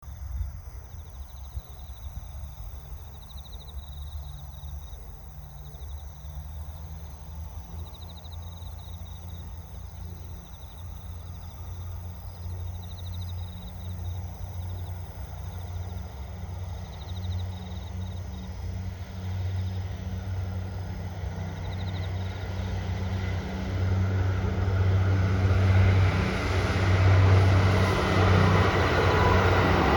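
Two-car Kiha 75 diesel multiple unit running on the Rapid Mie service. Its steady low diesel drone grows gradually louder as the train approaches, turning into a fuller rush of engine and running noise over the last few seconds. A faint, high, pulsing chirp repeats in the background during the first half.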